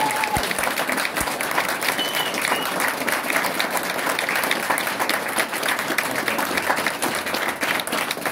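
A crowd of guests applauding and cheering, a dense steady clapping with a few whoops in the first couple of seconds.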